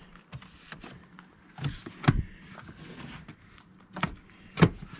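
Scattered clicks and knocks of a screwdriver and plastic dashboard trim being worked loose, about half a dozen sharp taps.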